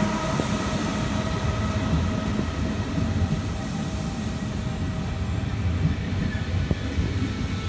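Trenitalia regional passenger coaches rolling slowly along a station platform, a steady low rumble of wheels on rails with a couple of faint clicks.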